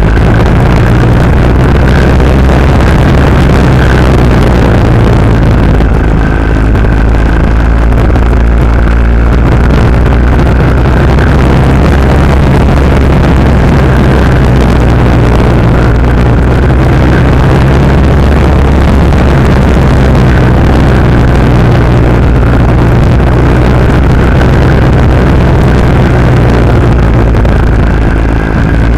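Norton Commando parallel-twin engine and exhaust running loud and steady under way, over a rush of wind noise.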